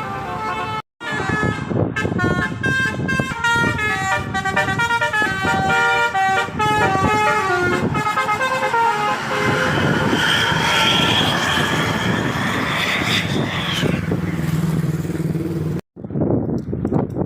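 Tour bus's telolet basuri musical horn playing a quick tune of short notes that step up and down in pitch, followed by a noisier stretch with a held high tone.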